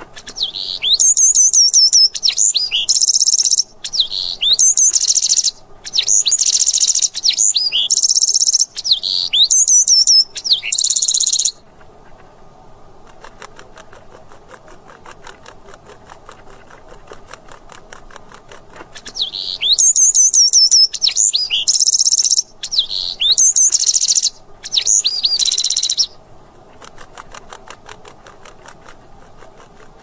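A wren singing in two long bouts, each a string of quick, falling whistled notes alternating with harsh buzzy trills; the first bout begins about a second in, the second about two-thirds of the way through.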